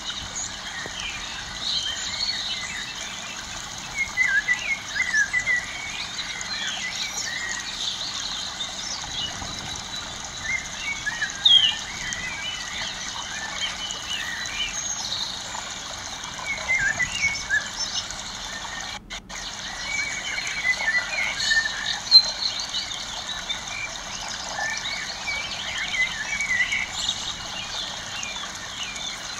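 Birds chirping and calling in many short, overlapping notes over a steady background hiss, with a brief dropout about two-thirds of the way through.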